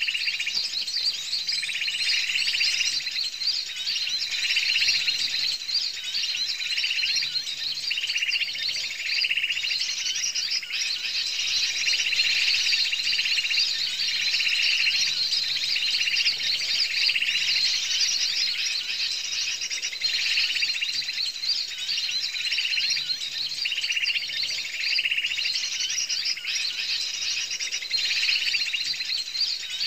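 Small birds chirping densely and continuously, with a lower call repeated about once a second.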